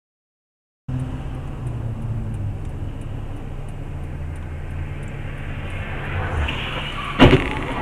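Dash-cam recording from inside a moving car: steady engine and road noise that starts about a second in, then a sudden loud bang of a collision near the end, followed by a second, smaller knock.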